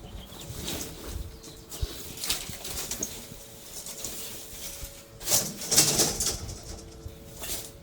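Palm fronds of a freshly cut palm tree rustling as they are moved, in irregular bursts; the loudest stretch comes about five to six and a half seconds in.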